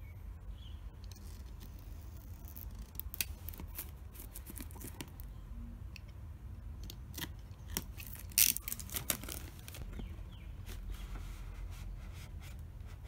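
Scissors blade slicing through the seal along the edges of a paper box, with scratchy cutting strokes and sharp clicks; the loudest clicks come about eight and a half seconds in.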